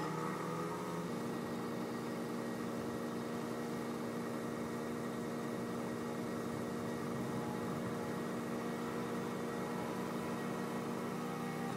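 Steady engine drone made of several pitches layered together, shifting slightly about a second in: a portable generator and a New Holland skid steer loader running together.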